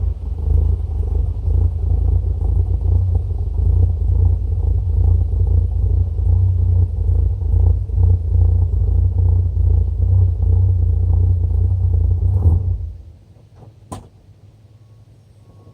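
An engine running with a low rumble that cuts off suddenly about 13 seconds in, followed by a single click.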